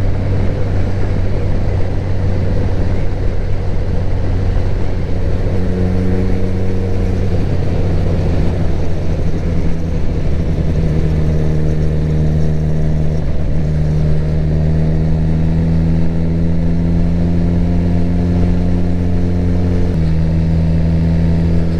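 Suzuki GSX-R1000 K7 inline-four engine running at a steady cruise while riding. A step in pitch about twenty seconds in suggests a gear change.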